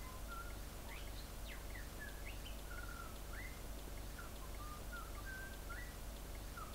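Faint bird calls: short chirps and sliding whistled notes, scattered throughout, over a low steady hum.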